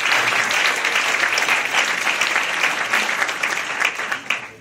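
Audience applauding, many hands clapping together. The clapping thins to a few scattered claps near the end and then stops.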